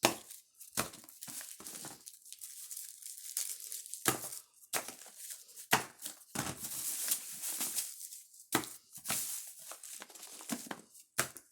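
Plastic and paper fireworks packaging crinkling in irregular bursts as small packs of jumping jacks are handled and sorted out of an assortment box.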